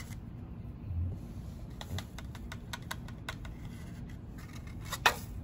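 A run of light, irregular plastic clicks and ticks from a flexible plastic weigh boat being bent and tilted to tip out potassium dichromate crystals, with one sharper click about five seconds in.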